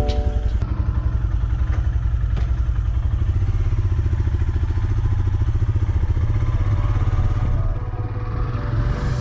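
Royal Enfield Himalayan's 411 cc single-cylinder engine running on the move, with a steady, even pulse, easing off briefly about eight seconds in and picking up again.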